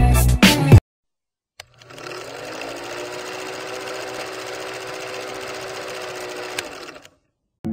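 Music cuts off abruptly under a second in; after a short silence and a click, a small motor runs with a steady whirr and a held tone for about five seconds, then stops.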